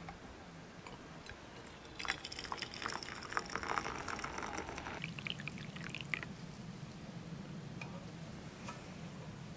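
Water poured from a stainless steel Sierra cup through the spout of its lid, splashing into a stainless steel mug for about four seconds from about two seconds in. It stops sharply, with the spout cutting off cleanly without dribbling.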